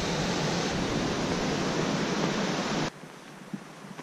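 Steady rush of water from the Upper Falls of Linville Falls, cutting off abruptly about three seconds in. After that there is only faint background with a few light ticks.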